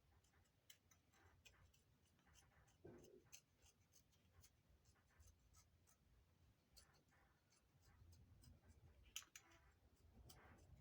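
Very faint scraping and small clicks of excess rubber diaphragm membrane being trimmed off a vacuum advance unit, a little more active near the end.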